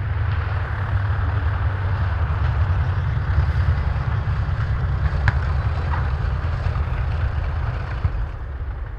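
Twin Wright R-2600 radial engines of a North American B-25 Mitchell bomber running as it rolls along the runway, a steady deep rumble. It eases slightly near the end, with one sharp click about five seconds in.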